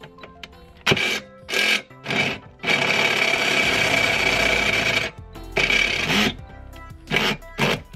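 Power drill boring through a metal seat-mount bar with a large bit, enlarging a pilot hole: several short spells of drilling, then one steady run of about two seconds in the middle, then more short spells near the end. Background music plays underneath.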